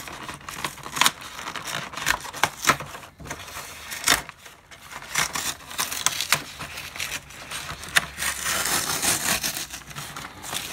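Cardboard parts packaging being opened and handled: irregular scraping and rubbing with many sharp clicks and taps, and a denser stretch of rustling about eight seconds in.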